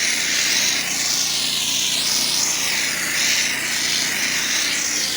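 A pressure washer's surface cleaner running over concrete: a steady, loud hiss of water jets spraying the pavement that swells and fades a little, over the washer's engine running steadily underneath.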